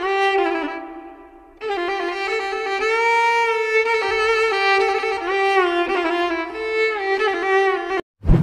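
Background music: a melody played on violin, with vibrato. It fades out about a second in, comes back half a second later, and cuts off abruptly near the end, just before a sudden swish.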